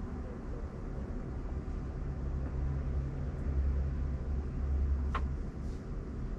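Road and tyre noise heard inside a moving car's cabin: a steady low rumble with hiss that grows heavier for a few seconds, then eases. A single short, sharp tick sounds about five seconds in.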